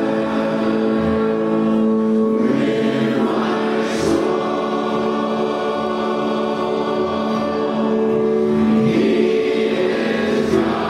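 A men's group leading a church congregation in a sung worship song, long notes held and changing every few seconds.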